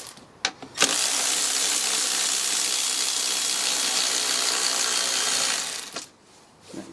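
Ratchet on a 10 mm socket undoing a fastener on the factory air intake: a few light clicks, then about five seconds of steady, fast ratcheting before it stops.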